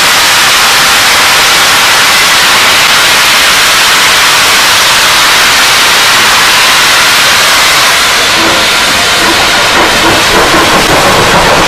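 Steam hissing loudly and steadily from SR Merchant Navy Class steam locomotive 35018.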